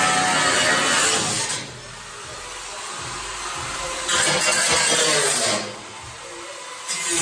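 Angle grinder cutting through car-body sheet steel in bursts: a loud gritty whine for the first second and a half, again from about four seconds in for a second and a half, and once more near the end, dropping to a quieter run between cuts.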